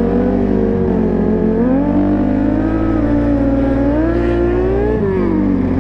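Motorcycle engines running: over a steady low engine drone, one engine's pitch climbs slowly for a few seconds, then drops about five seconds in.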